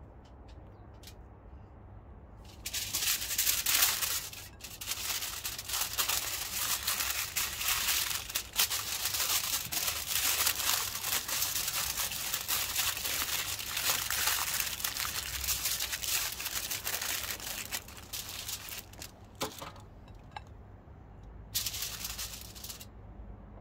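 Aluminium foil crinkling and crackling as it is folded and scrunched by hand into a parcel, starting about three seconds in and going on for some fifteen seconds, with a short burst of crinkling again near the end.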